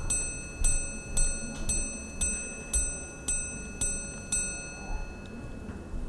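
Bulgari Daniel Roth minute repeater in a titanium case chiming: its hammer strikes the gong in an even run of eight ringing strokes, about two a second, the last about four and a half seconds in.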